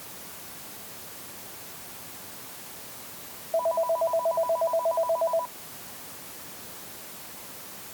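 Electronic telephone ringer warbling once for about two seconds in rapid pulses of two tones, over a steady hiss.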